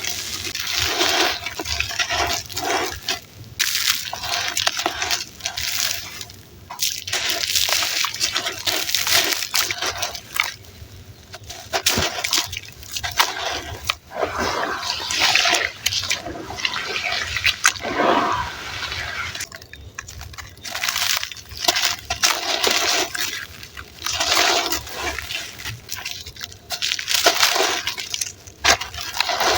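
Gritty red sand and charcoal crumbling in foamy water, in repeated wet bursts of a second or two with short pauses between, dotted with small crackles.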